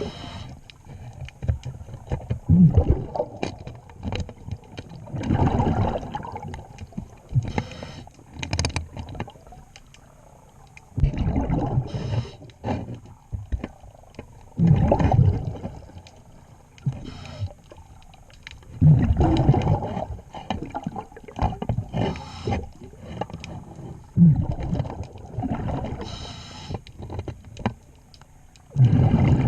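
Scuba diver's regulator breathing underwater: a rumbling gush of exhaled bubbles every few seconds, with quieter hissing and small clicks in between.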